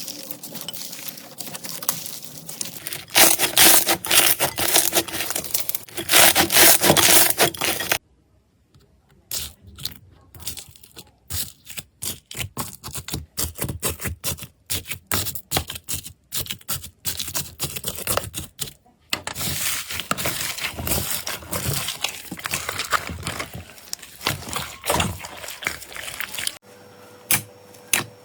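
Slime being squeezed and poked by hand across several clips: dense crackling and crunching, broken by a stretch of separate sharp clicks and pops.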